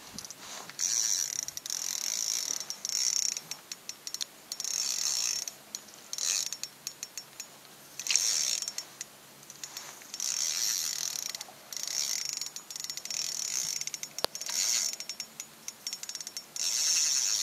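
Fishing reel being cranked in short spells, a high ratcheting whir with brief pauses, as a hooked walleye is reeled in. One sharp click sounds late on.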